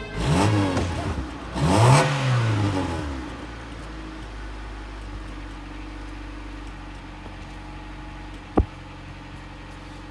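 Honda D15B7 single-cam four-cylinder engine revved twice, the pitch rising and falling each time, then settling back to a steady idle. A single sharp click comes near the end.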